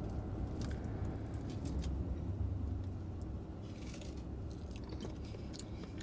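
A person chewing and biting into a tamale, with soft wet mouth sounds and faint clicks, over a steady low rumble.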